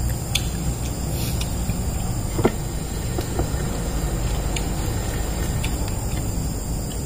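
Steady low background rumble with a constant high, thin cricket whine, and a few soft clicks and taps from eating by hand out of plastic bowls.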